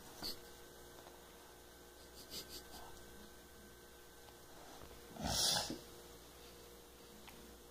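A child's single loud breath, about five seconds in, while he lies asleep, over a faint steady hum.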